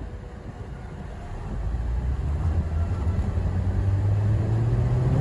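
Vehicle engine running and speeding up: it grows louder from about a second and a half in, and its pitch rises slowly.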